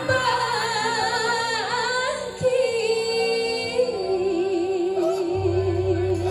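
Music with a high, female-sounding voice singing long held notes with vibrato over a steady low accompaniment. A deep bass note comes in near the end, then everything cuts off abruptly.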